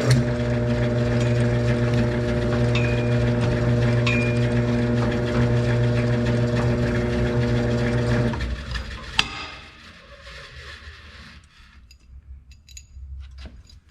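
Electric power tool motor running steadily for about eight seconds, then switched off, followed by a few light clinks, while the back side of freshly drilled holes is deburred.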